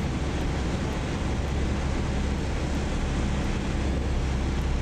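Steady drone of a light aircraft's engine and propeller with airflow noise, heard from inside the cockpit on final approach with flaps out.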